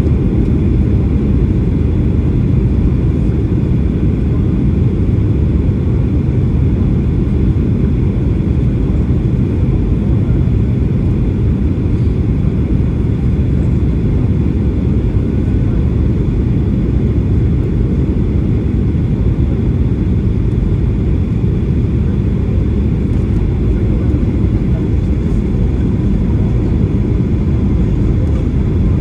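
Steady cabin noise inside a Boeing 737-800 airliner in flight: a loud, even roar of engines and airflow with a faint steady hum above it.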